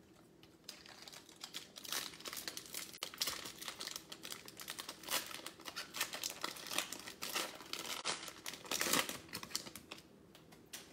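Crinkling and crackling of a trading-card pack's foil wrapper being handled and opened, with cards shuffled in hand. A fast run of small crackles starts about a second in and dies down near the end.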